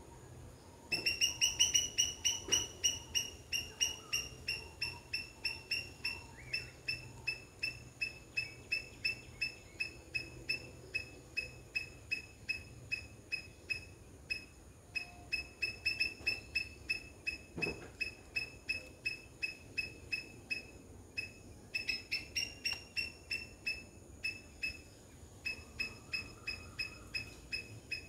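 A high-pitched chirping call repeated rapidly and evenly, about three to four chirps a second, with a couple of short breaks.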